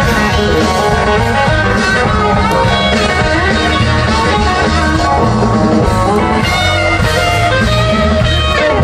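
Live band playing an instrumental passage through a large outdoor PA, electric guitar to the fore over drum kit, bass and keyboards, heard from within the crowd.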